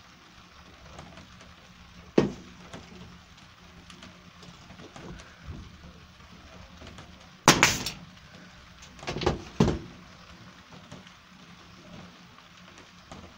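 Staple gun firing staples into a plywood and pine bending former: one sharp shot about two seconds in, a louder one about halfway through, then two more in quick succession.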